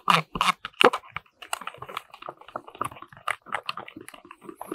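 Teaspoon whisking a thick sour-cream sauce in a plastic cup: quick, irregular clicks and scrapes of the spoon against the cup. The strokes are louder in the first second, then come as a denser run of lighter ticks.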